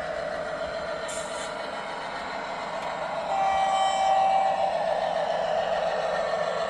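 Cavalex Class 60 model locomotive running with a steady mechanical hum. A steady pitched tone sounds for about a second and a half just after the middle, and the sound grows louder there.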